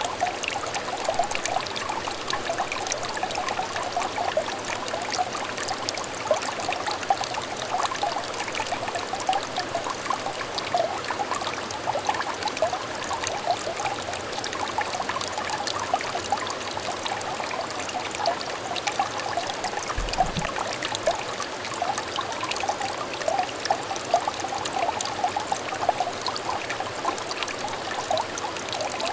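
A small clear stream trickling and babbling steadily, with a dense run of small bubbling notes.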